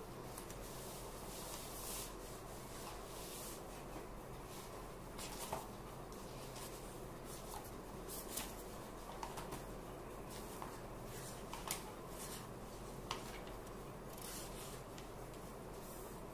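Quiet room tone with a steady faint hum, broken by a handful of soft rustles and light clicks scattered through.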